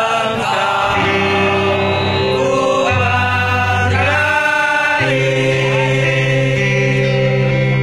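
A song played live through a PA system: singing over an acoustic guitar, with long held bass notes that change every second or two.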